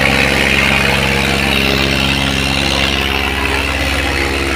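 Mahindra Arjun 555 DI tractor's diesel engine idling steadily.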